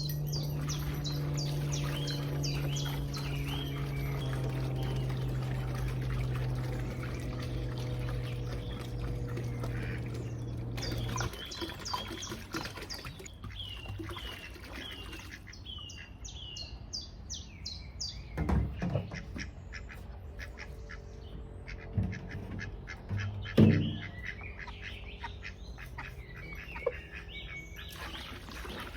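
Ducks quacking now and then, louder a few times in the second half, over many short high chirps of small birds. A low steady hum runs under the first eleven seconds or so, then stops.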